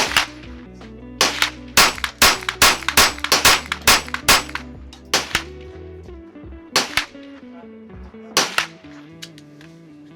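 Rifle firing a rapid, uneven string of semi-automatic shots, thickest in the first half and then spaced out, with background music underneath.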